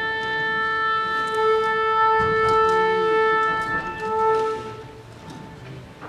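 A wind instrument holds one long steady note, swelling twice, and stops about five seconds in, leaving a low hall murmur.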